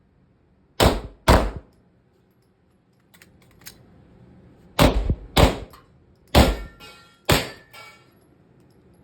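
Six pistol shots: a quick pair about a second in, another quick pair near the middle, then two more about a second apart, the last two followed by a short ringing tail.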